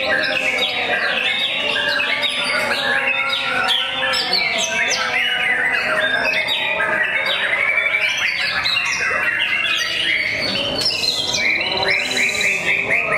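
White-rumped shama singing among many other caged songbirds singing at once: a dense, continuous tangle of whistles, chatter and squawks, with a fast high trill near the end.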